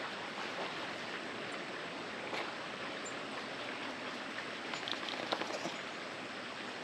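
Steady outdoor background hiss with no clear source, and a few faint ticks a little after two seconds and again around five seconds in.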